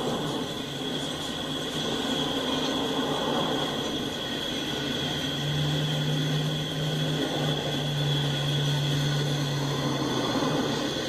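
Norfolk Southern freight train of empty flatcars rolling past, a steady noise of wheels on rail with a thin high whine over it. A low hum joins for several seconds around the middle.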